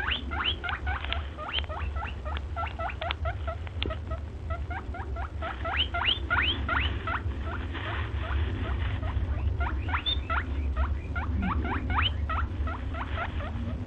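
An animal giving rapid, repeated short rising squeaks, several a second, over a steady low rumble.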